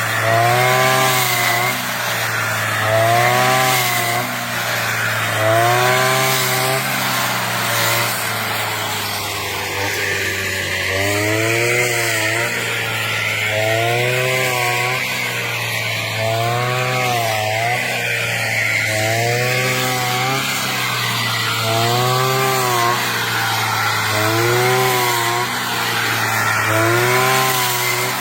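Brush cutter engine running hard while cutting rice, its pitch rising and falling in regular swells every two to three seconds as the blade takes each swath of stalks.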